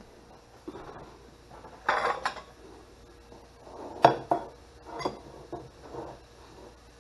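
Ceramic plates and bowls clattering and knocking against each other and the countertop as they are handled. A cluster of clatters comes about two seconds in, the loudest sharp knock about four seconds in, then a few lighter clinks.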